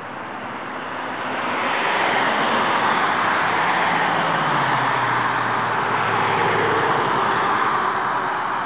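A road vehicle passing on the street. Its tyre and engine noise swells over the first couple of seconds, holds, then eases off near the end, with a low engine note that drops in pitch as it goes by.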